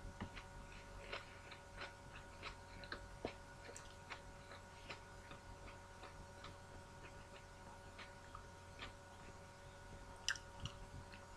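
Quiet chewing: faint, irregularly spaced mouth clicks, about one or two a second, over a steady faint hum, with a sharper click near the end.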